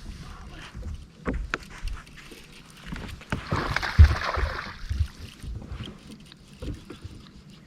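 Scattered knocks and bumps on a fishing boat, with a brief rush of noise about three and a half seconds in and a heavy thump at about four seconds.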